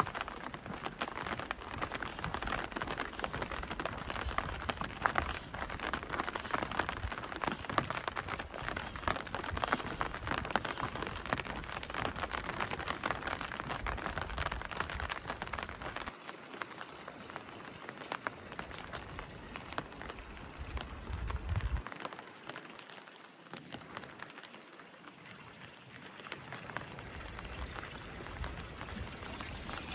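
Rain falling in a dense patter of many small drops, easing off somewhat in the second half.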